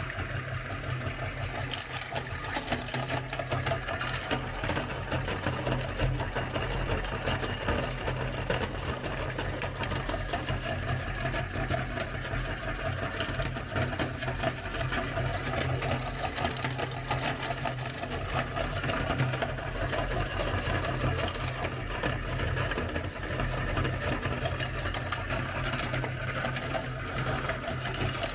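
Electric meat grinder running steadily with a constant motor hum, while hard lollipop candy is crushed inside it with dense, irregular crackling and clicking.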